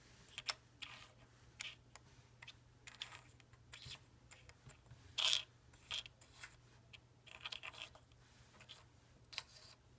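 Plastic keycaps being handled, picked up, set down and slid across a surface, giving irregular light clicks and short scrapes, the loudest about five seconds in. A faint steady hum lies underneath.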